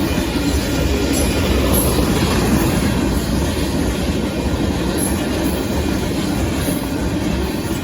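Hopper cars of a Union Pacific sand train rolling past: a steady, loud, low rumble of steel wheels running on the rails.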